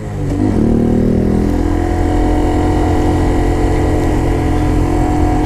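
2017 Honda Grom's 125 cc single-cylinder engine picking up revs for about the first second and a half, then running at a steady pitch.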